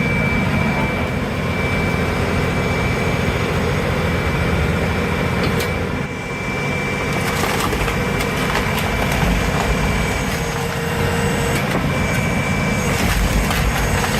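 Heavy firewood-splitting machinery running steadily under load, with a constant high whine and scattered sharp knocks and cracks as wood is split.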